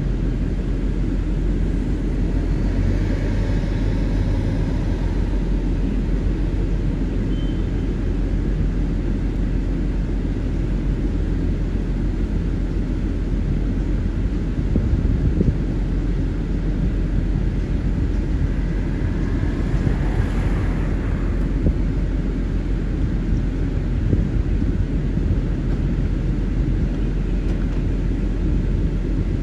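Steady low rumble of street traffic and idling vehicles, with a car passing about twenty seconds in.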